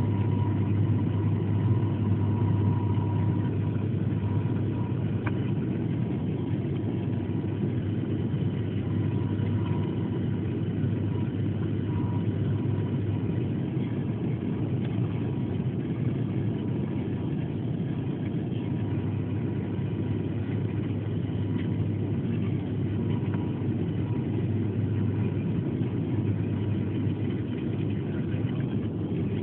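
Steady drone of a turboprop airliner's engines and propellers heard from inside the cabin on final approach with the landing gear down, a strong low hum running under it.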